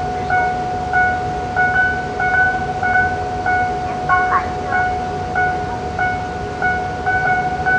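Chinese railroad crossing signal sounding: a steady tone with a higher electronic beep repeating about twice a second, over a low rumble. A short squeal that bends in pitch comes about four seconds in.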